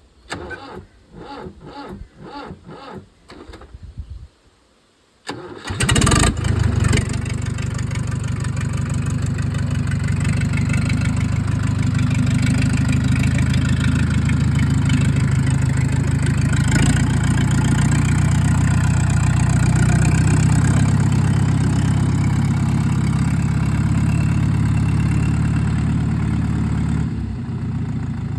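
Fendt tractor's diesel engine cranked by the starter motor in a run of even pulses for about four seconds. After a short pause it fires, revs briefly and settles into a steady run, dropping a little near the end.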